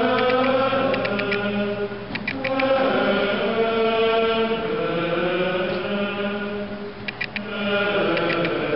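Latin plainchant of the Mass sung by voices, in long held phrases that break briefly about two seconds in and again near seven seconds. A few short, bright high clicks come and go over the singing.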